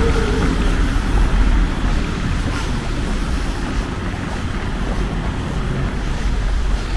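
Wind buffeting the microphone: a steady rushing noise with a heavy low rumble.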